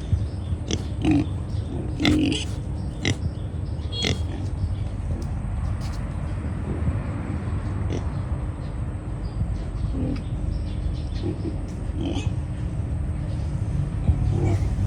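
Pigs eating at feeding time: steady low chomping and snuffling with frequent clicks and knocks and short grunts scattered throughout.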